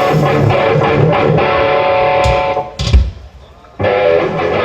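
Electric guitar strumming and letting chords ring through the stage amplification during a soundcheck. The chords stop just before the middle, a loud thump sounds about three seconds in, and after a short gap another chord rings out.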